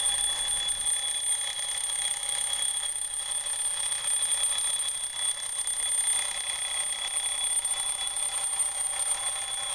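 Streamline metal twin-bell alarm clock ringing steadily: its hammer striking the two metal bells in an unbroken, bright ring.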